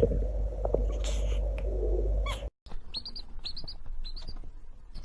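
A domestic chick peeping: short, high, rising cheeps in quick runs of about three, starting about halfway through. Before that, a steady low hum with a few faint clicks.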